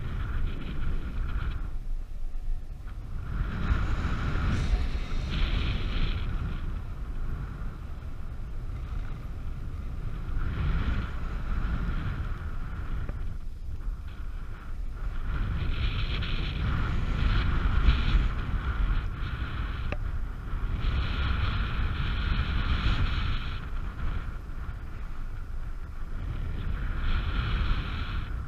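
Wind buffeting the microphone of a camera on a paraglider in flight, a continuous low rumble that swells and eases. A high steady tone comes and goes every five or six seconds.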